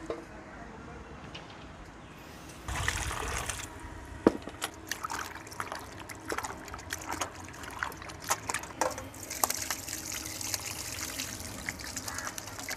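Squid being rinsed by hand in water in a stainless steel bowl: water sloshing and splashing with sharp clinks, then water poured out of the bowl, splashing onto the concrete floor near the end.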